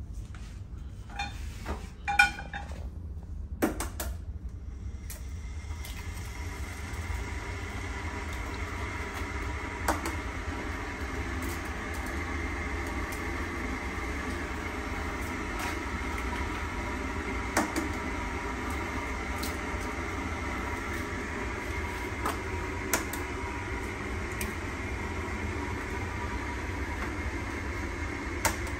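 A kitchen appliance motor starts about five seconds in and hums steadily. A few sharp clicks and knocks of cookware come before it, the loudest about two seconds in.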